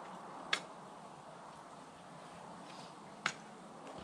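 Ice tool picks striking waterfall ice: two sharp, short impacts about three seconds apart, over a steady faint hiss.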